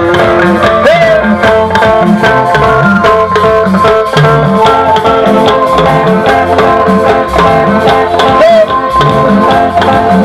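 Band music played loud through a large PA speaker stack: a steady drum beat under a moving bass line and several sustained melodic lines.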